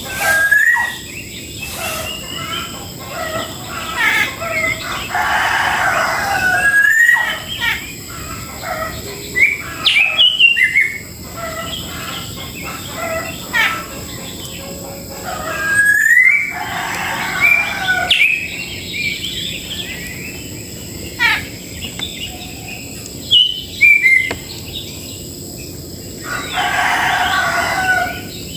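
Roosters crowing, about three times, among many small birds chirping and calling in short rising whistles.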